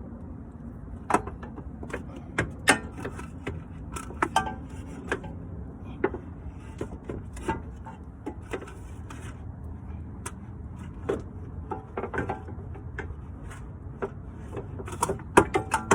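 Scattered metallic clinks and knocks, uneven in spacing, as a new shock absorber is handled and worked into place, over a steady low background noise.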